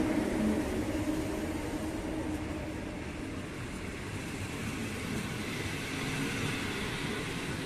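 Intercity passenger coaches rolling past as a train pulls away, a steady rumble of wheels on rail; the hum of the electric locomotive that has just gone by fades out in the first half-second.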